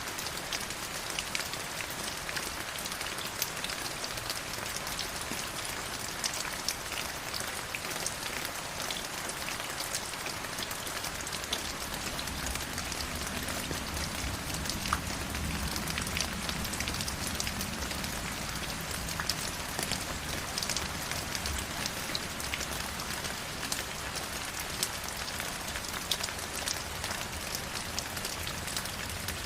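River water flowing, a steady rush full of small splashes and droplet clicks. A low rumble joins in the middle for about ten seconds.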